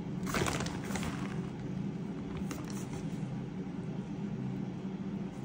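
Grated cheese being picked up and sprinkled by hand, a brief rustle about half a second in and a few faint clicks later, over a steady low machine hum.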